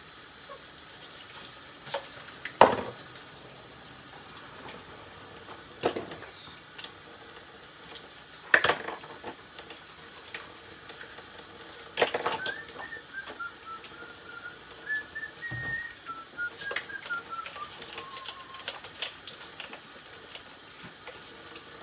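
Washing up: dishes and plastic baby bottles knocking against each other a handful of times over a steady hiss. From about halfway, a whistled run of notes stepping up and down for several seconds.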